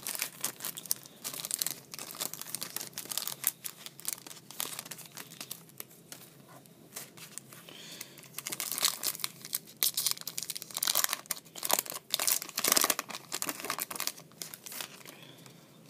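Foil wrapper of a 2011 Topps Chrome baseball card pack crinkling and tearing as it is handled and opened by hand. The crackling is loudest in the second half.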